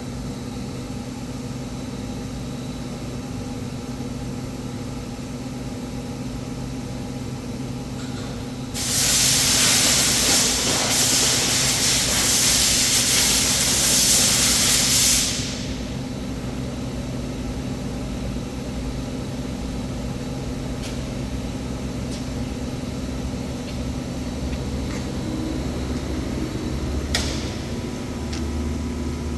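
Air-cooled handheld laser welder running with a steady hum. About nine seconds in, a loud hiss starts and lasts about six seconds, then stops abruptly; this is the torch firing on a test run.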